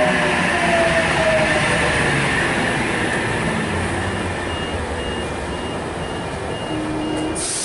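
Sydney Trains OSCAR (H-set) double-deck electric train pulling out and running past, with a motor whine falling in pitch early on and the noise slowly fading as the last car goes by. A faint high beeping starts about halfway through.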